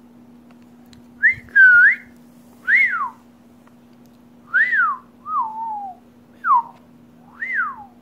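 A series of about seven clear whistled notes, spaced irregularly, most rising and then falling in pitch and each under half a second long.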